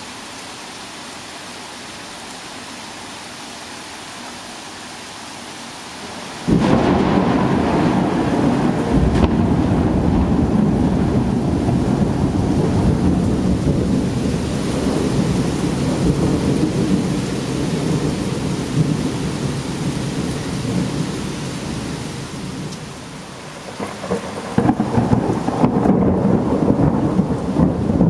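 Steady rain hiss. About six seconds in, a loud thunderclap breaks into a long rolling rumble that lasts over fifteen seconds. Near the end a second peal of thunder comes in.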